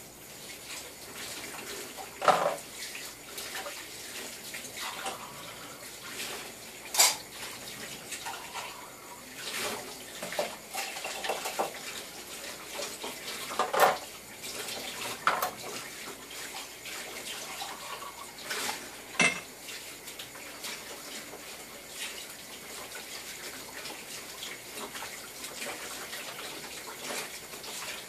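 Kitchen tap running into the sink during hand dishwashing, with dishes and cutlery clinking and knocking against each other now and then.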